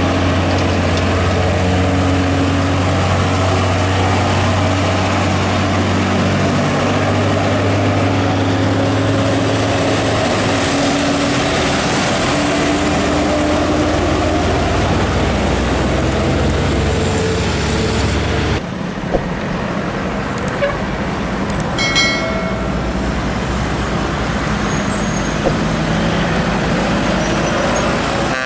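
Heavy diesel trucks running close by, the engine note rising as one accelerates. About two-thirds of the way in the sound changes abruptly to lighter road traffic, with a short horn toot soon after.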